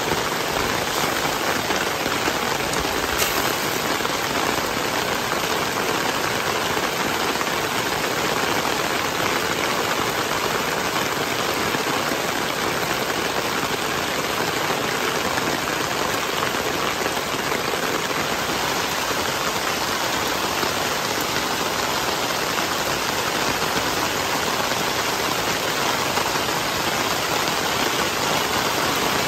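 Heavy tropical rain falling hard and steadily, heard from under a camping flysheet tarp as it hits the tarp overhead and the waterlogged ground.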